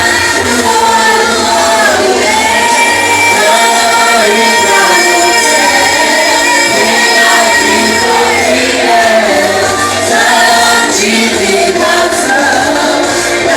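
A worship group singing a Pentecostal worship medley together with live accompaniment: several voices holding and bending sung lines.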